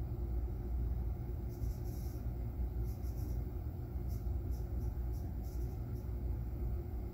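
Steady low background rumble, with a scatter of faint light ticks between about one and a half and six seconds in.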